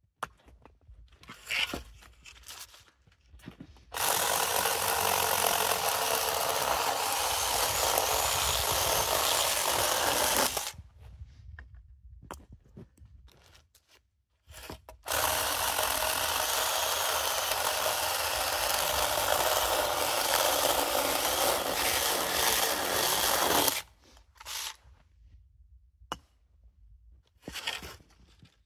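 Zeeksaw electric chainsaw cutting through firewood in two long cuts, the first about six seconds and the second about nine, with a pause of a few seconds between them and small knocks and handling sounds in the gaps.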